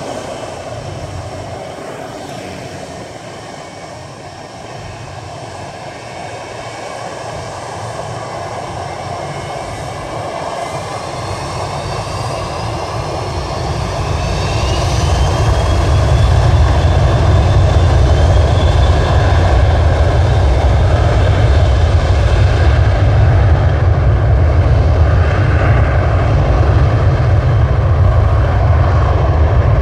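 McDonnell Douglas MD-83 jetliner's rear-mounted Pratt & Whitney JT8D turbofans spooling up to takeoff power: the sound swells over about ten seconds with a rising whine, then from about halfway through settles into a loud, steady low rumble as the jet starts its takeoff roll away.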